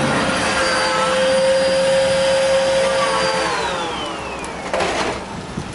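Upright vacuum cleaner running with a steady motor whine, then switched off about three and a half seconds in, its pitch falling as the motor winds down. A brief knock comes near the end.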